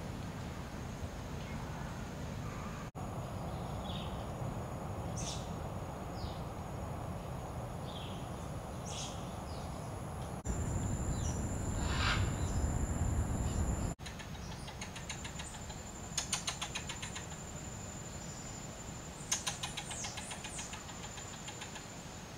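Wild birds calling in the trees: scattered short chirps, one louder falling call about halfway through, and two bursts of rapid rattling trills later on. Under them run a steady low rumble and a steady high whine.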